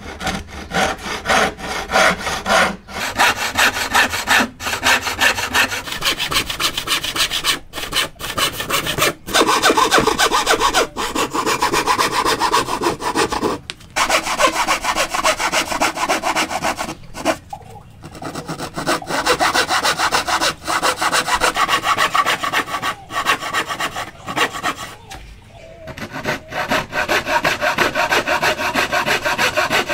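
Wooden frame saw (bow saw) cutting dovetails by hand into the end of a softwood board: steady back-and-forth rasping strokes, with a few brief pauses between cuts.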